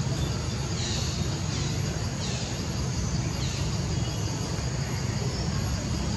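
Outdoor ambience: a steady low rumble with four short, high, falling chirps in the first few seconds.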